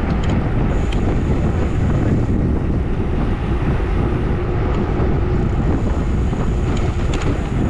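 Steady wind rushing over the microphone of a camera on a moving road bike, with a low rumble of tyres rolling on asphalt. A faint high whistle comes and goes, and there are a few light clicks.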